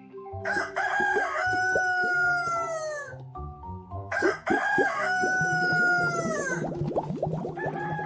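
Rooster crowing twice, two long calls that each fall in pitch at the end, with a third crow starting near the end.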